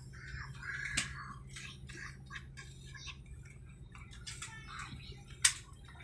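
Steady low hum of a passenger aircraft cabin, with scattered small clicks and rustles and one sharp click about five and a half seconds in.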